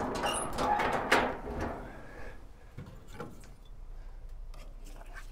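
Heavy steel lid of an offset smoker's cooking chamber being opened and handled, with a sharp metallic knock about a second in, then a few lighter knocks.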